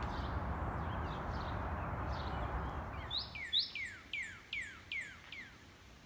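Northern cardinal singing: clear whistled notes, two held high and then dropping, followed by a run of about five quick downward slurs, about two or three a second. Before it, a steady hiss of background noise with faint bird chirps fades out about three seconds in.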